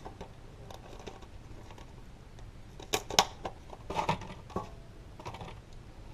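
Handling of a small super glue tube and its packaging: a few light plastic clicks and brief rustles, grouped about three seconds in and again around four to five seconds.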